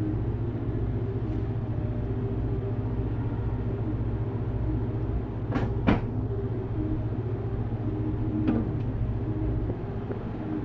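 Steady low rumble of the fire under a black cast-iron pot, with two sharp knocks about six seconds in and a lighter one a few seconds later.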